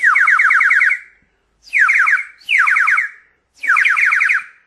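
3D-printed whistle blown in four short blasts, the first about a second long, each a warbling trill of quick falling chirps. It sounds cleanly even with print stringing still left inside it.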